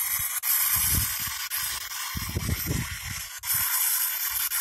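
P-SB7 spirit box sweeping through radio stations: a steady static hiss broken by a series of short low bursts of sound.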